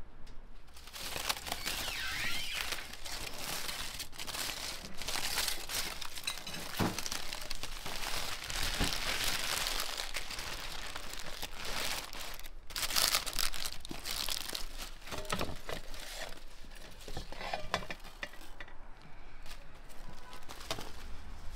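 Baking parchment and aluminium foil crinkling and rustling as they are peeled back from a roasted joint of meat. The crackle starts about a second in and thins out near the end.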